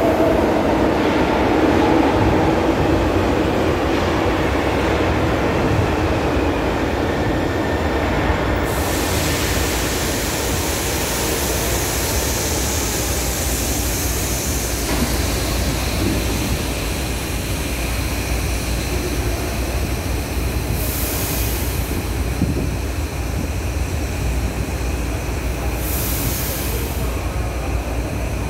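São Paulo Metro electric train slowing to a stop at an underground platform, its motor and wheel whine fading over the first several seconds. A steady hiss of air starts suddenly about nine seconds in, and two short hisses follow near the end as the doors open.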